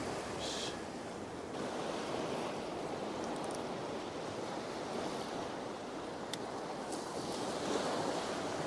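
Ocean surf breaking on a sandy beach: a steady rush of waves that swells slightly near the end.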